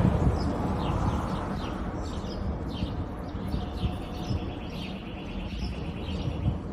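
Aircraft engine rumble overhead, slowly fading, with small birds chirping repeatedly over it.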